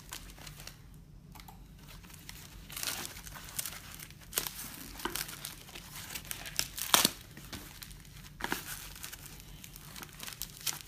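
Hands tearing and peeling open a taped plastic courier package lined with foam sheet: irregular crinkling of plastic and foam broken by sharp rips, the loudest about seven seconds in.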